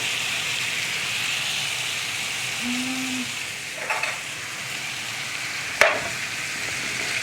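Oxtail frying in butter in a pan, a steady sizzle. A soft clatter comes about four seconds in, and one sharp knock about six seconds in.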